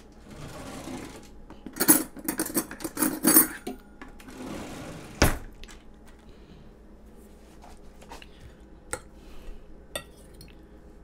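Cutlery and dishes clattering on a kitchen counter, with a rapid run of clinks about two seconds in and a sharp knock a few seconds later. Near the end a metal fork taps a few times on a ceramic plate as it cuts into a cooked fish fillet.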